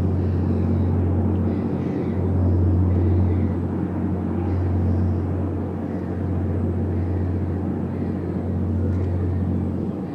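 Steady low drone of ships' diesel engines heard across the water, swelling and easing slightly every couple of seconds.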